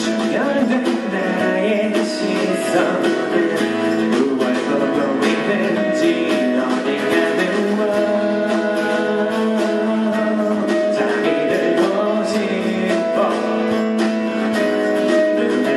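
An acoustic guitar strummed in steady chords, played live, with a man singing into a microphone over it.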